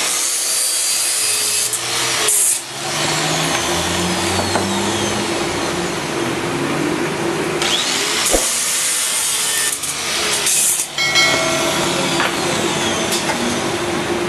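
Electric angle grinder running with a steady motor whine while its disc cuts into thin steel rods, giving a loud, high hiss. The hiss comes in two stretches, near the start and again about eight seconds in, with short dips between.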